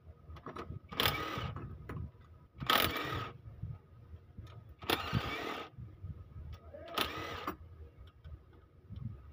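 Battery-powered wrench run in four short bursts, about half a second each, loosening bolts on a Toyota 2KD cylinder head during teardown.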